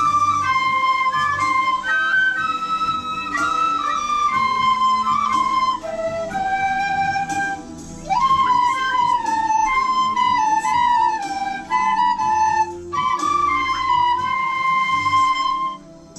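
A side-blown bamboo flute plays a melody of held notes, with a few slides up into notes, over a quieter karaoke backing track.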